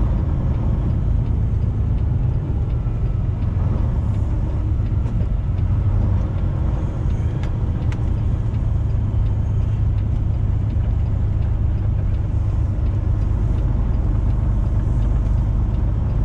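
Semi truck running down the road: a steady low rumble of engine and road noise, with a few faint ticks.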